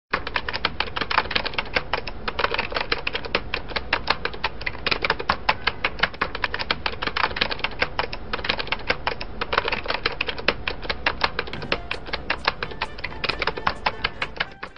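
Rapid, uneven clicking, many clicks a second, like typewriter keys being struck, running on without a break.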